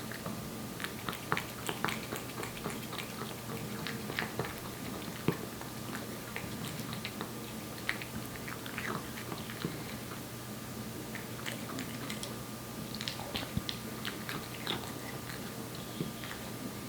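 A Korean Shorthair cat chewing wet cat food close up: irregular wet smacking and clicking chews that come in quick clusters with short pauses between them.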